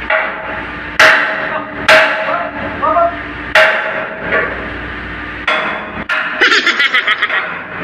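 Hammer blows on metal, each leaving a short ringing tone: five single strikes a second or two apart, then a quick run of about eight strikes near the end.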